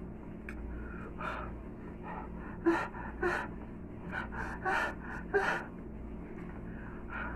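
A man gasping in a quick series of sharp breaths through his mouth, about seven of them over four seconds, in reaction to the burn of spicy Samyang Buldak noodles.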